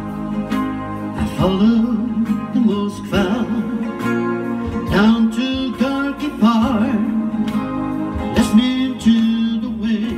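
A man singing a slow ballad to his own strummed acoustic guitar. The guitar plays alone at first, and the voice comes in about a second in.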